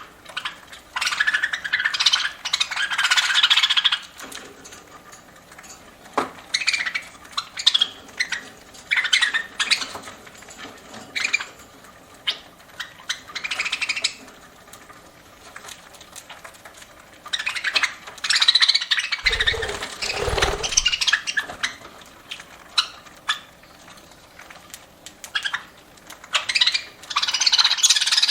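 Pet budgerigars (parakeets) chattering and chirping in bursts, with many small sharp clicks between the bursts, the sound of beaks working at seed. A few low thumps come a little past the middle.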